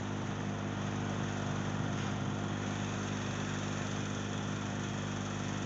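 Steady background machine hum with an even hiss, unchanging throughout, from a running motor or electrical appliance near the microphone.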